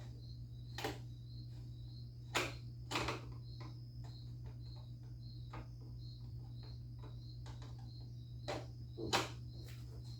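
A handful of sharp clicks and knocks from screws and plastic body panels being handled while a 50cc scooter's front cover is taken off, the loudest two about two seconds in and near the end. Under them runs a steady high chirp pulsing about three times a second, over a low hum.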